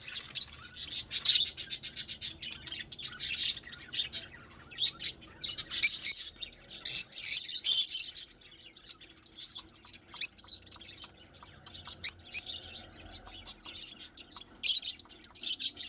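Peach-faced lovebirds chattering: rapid, sharp, high-pitched chirps and calls, thick through the first half, then more scattered.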